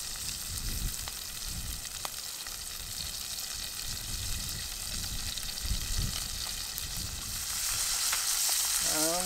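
Chicken breast frying in hot oil in a non-stick Trangia sauté pan, with a steady sizzle.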